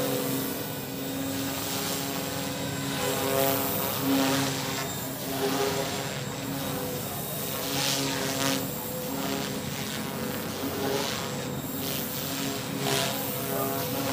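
OXY 2 Pro 215 electric RC helicopter in flight: the steady whine of its Lynx brushless motor and drive with the whir of the 215 mm main rotor, swelling and fading as it moves, with a few brief whooshes of blade noise.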